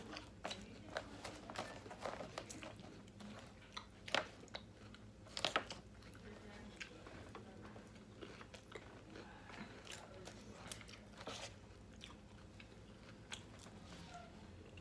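Close-up chewing of a chicken bacon salad with crisp lettuce: a run of short wet crunches and bites, the loudest about four and five and a half seconds in.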